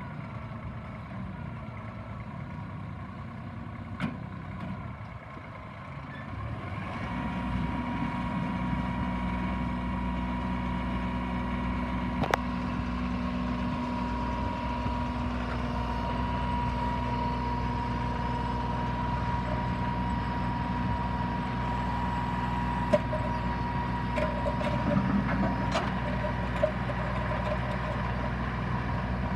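Kubota L3300 tractor's three-cylinder diesel engine running. It grows louder about seven seconds in, as if throttled up, then holds steady with a thin steady whine over it. A few sharp clicks come through.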